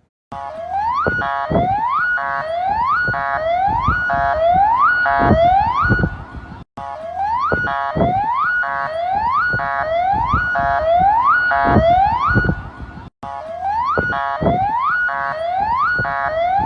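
Emergency alert alarm: a loud siren tone that sweeps upward again and again, about one and a half sweeps a second, with irregular low thuds under it. It breaks off briefly twice and then resumes.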